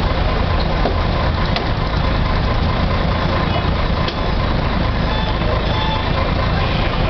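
Busy street traffic: a loud, steady rumble of vehicle engines running, with no single event standing out.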